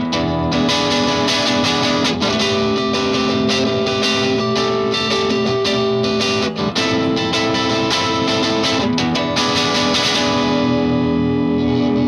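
Electric guitar, a Fender Custom Shop '57 Stratocaster, played through an MXR Duke of Tone pedal in its distortion mode into a Vox AC15 on its clean channel: picked distorted riffs and lead lines, with the last notes held and left ringing about ten seconds in.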